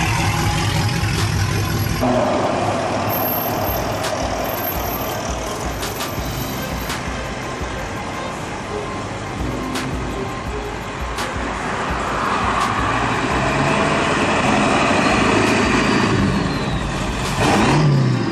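Truck and car traffic moving past: a steady wash of engine and tyre noise that swells and fades, with one louder pass near the end.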